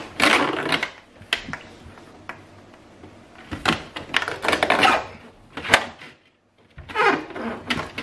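Rustling and scattered light plastic clicks and knocks in several short bursts as a flexible washing-machine drain hose is worked through a hole in a cabinet base. One sharp click comes about two-thirds of the way through.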